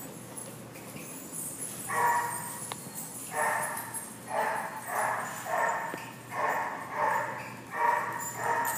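Dog barking over and over: a string of about eight short barks, starting about two seconds in and then coming every half second to a second.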